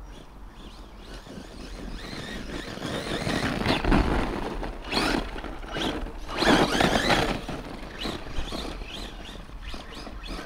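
Brushless electric RC monster truck driven hard over loose ploughed soil: the motor whirs and the tyres churn and spray dirt. It builds over the first few seconds and is loudest as the truck passes close, about four seconds in and again around six to seven seconds in, then fades as it drives off.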